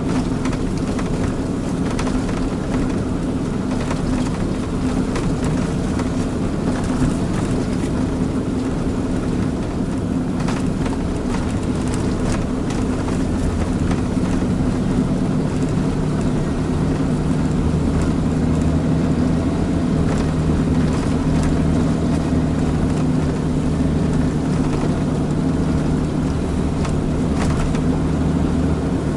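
Mitsubishi Fuso Super Great tractor unit's diesel engine droning steadily, heard inside the cab on the move, with road noise and a few light clicks and rattles. The drone grows slightly louder about halfway through.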